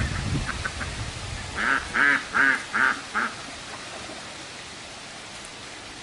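A duck quacking five times in a quick series, about three quacks a second. The calls stop and leave a steady hiss.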